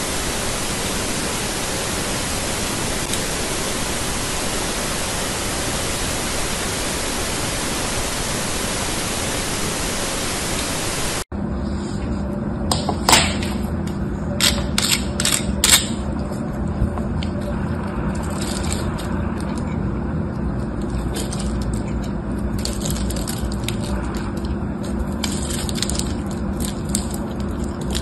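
A steady, even hiss-like noise for about the first eleven seconds, which cuts off abruptly. Then a snap-off craft knife cuts into a hard bar of soap, with several sharp cracks and crumbly scraping over a low steady hum.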